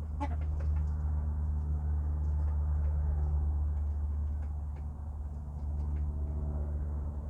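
Faint, scattered peeps of young chicks over a steady low hum.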